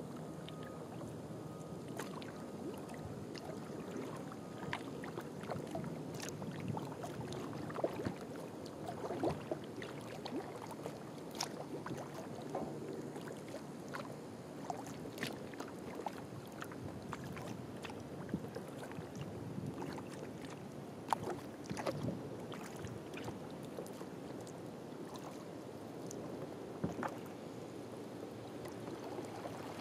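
Kayak being paddled on calm water: a steady wash of water along the hull, with scattered irregular drips, small splashes and light knocks from the paddle strokes, picked up by a camera on the bow.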